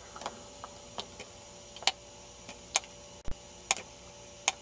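Light, irregularly spaced clicks and taps, about eight in four seconds, with one dull thump about three seconds in: small handling noises around the circuit board and magnifier.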